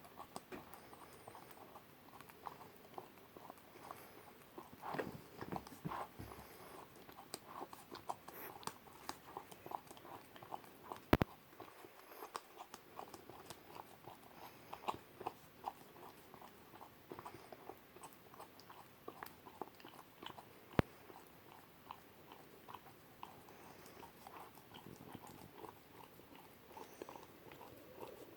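German Shepherd puppy licking and chewing whipped cream from a small cup: a run of irregular wet smacks and small clicks, with two sharper clicks, one about 11 seconds in and one about 21 seconds in.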